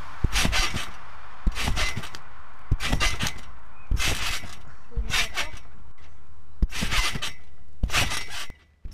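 A person bouncing on a garden trampoline, heard from under the mat: about seven landings on the bed, a little over one a second, each a sharp impact.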